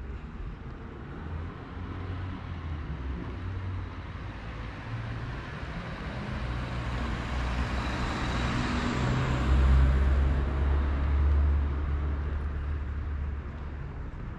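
A car driving past on the street: tyre and engine noise swells, is loudest about two-thirds of the way through with a deep rumble, then fades.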